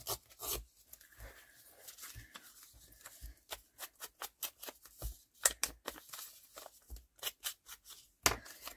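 Scraps of craft paper being handled on a journal page: a run of short rustles and taps, thickest in the middle, with a few louder ones.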